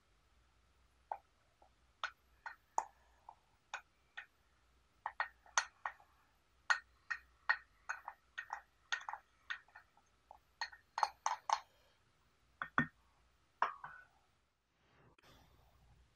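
Wooden spoon clinking and scraping inside a glass teapot while wet, spent tea leaves are scooped out and dropped onto a metal tray: a long run of short, sharp, irregular taps and clinks, with one duller knock near the end before they stop.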